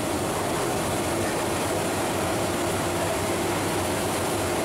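Steady, even rushing roar with a faint low hum underneath and no distinct knocks or clinks: background noise of a working kitchen, with a large pot of biryani liquid on the stove.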